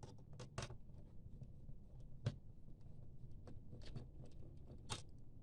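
Faint, scattered clicks and light taps, about six in all, of a screwdriver and small screws against the plastic and metal of a laptop's hard drive bay.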